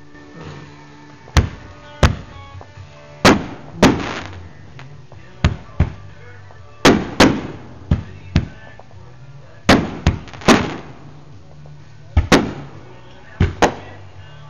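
Aerial fireworks bursting overhead: a quick, irregular string of about fifteen sharp bangs, some in close pairs, each followed by a rolling echo.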